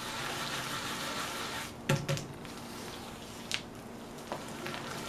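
Vegetable shortening and sugar being beaten by hand in a glass bowl: a steady soft scraping, squishing hiss of the paste worked against the bowl, with a few sharp clicks, the loudest about two seconds in.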